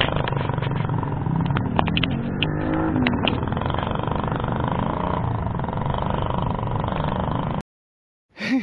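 Steady wind and tyre rush on a camera riding along on a moving bicycle, with a few sharp clicks and the engine of an oncoming motorcycle. The sound cuts off suddenly near the end.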